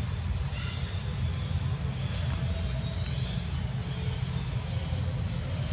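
Outdoor ambience: a steady low rumble with a few short, thin, high bird chirps, and a rapid high trill about four and a half seconds in that lasts about a second.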